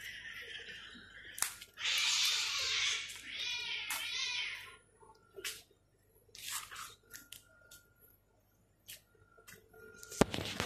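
Stray cats squabbling over food: one cat gives a long hiss, then a drawn-out wavering cry. Scattered small clicks follow, with a sharp click near the end.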